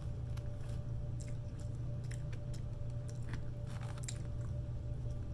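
A person chewing food close to the microphone: wet mouth sounds with irregular small clicks, over a steady low hum.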